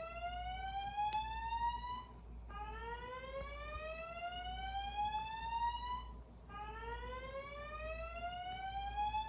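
Fire alarm voice evacuation speaker sounding the slow whoop alert tone, the evacuation signal played between spoken messages. Each whoop is a rising sweep lasting about three and a half seconds, repeated after a short break, two full whoops plus the tail of one before them.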